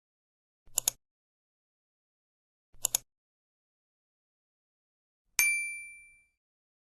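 Edited-in sound effects over total silence: two quick double clicks about two seconds apart, then a bright metallic ding that rings out and fades over about a second.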